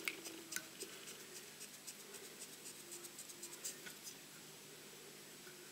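Faint scattered clicks and light scratching of black fly-tying thread being wound with a bobbin around a hook shank, building a tapered body; the clicks thin out after about four seconds.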